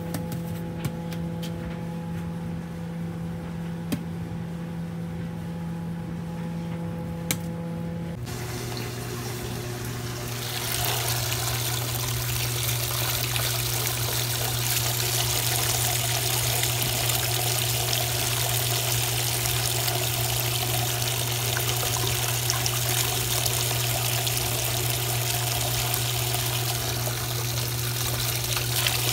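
Top-loading washing machine filling: a steady machine hum, then, about ten seconds in, the fill water starts spraying from the shower nozzles under the lid and pours into the tub and over a bleach-powder ball held in the hand. The water spray is the loudest part.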